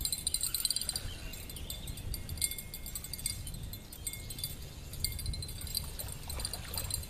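Wind buffeting the microphone in an uneven low rumble, with rapid high-pitched chirping trills from small creatures in the background.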